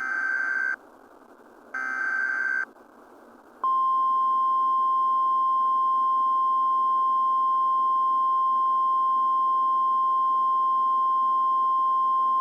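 Two short, harsh buzzing bursts of EAS/SAME digital header data, about a second apart, then the NOAA Weather Radio 1050 Hz warning alarm tone: one loud, steady, piercing pure tone that starts about three and a half seconds in and holds, heard over radio hiss. Together they signal an emergency alert about to be broadcast.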